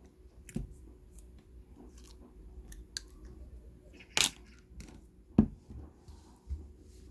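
Scattered light clicks and taps, with two sharper knocks about four and five and a half seconds in, over a faint steady hum.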